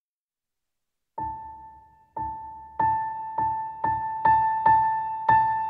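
Background piano music. After about a second of silence, one high note is struck eight times, the strikes coming closer together, each ringing out and fading.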